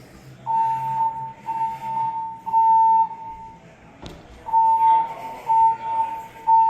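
Siemens voice-evac fire alarm sounding its evacuation tone: a steady high beep in two groups of three, each beep about half a second long and a second apart, with a pause between the groups (the temporal-three evacuation pattern).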